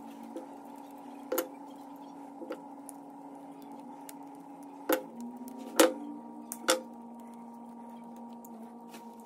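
Metal hand tools, pliers and side cutters, set down on a wooden workbench: a few sharp knocks, the three loudest a bit under a second apart between about five and seven seconds in, over a steady low hum.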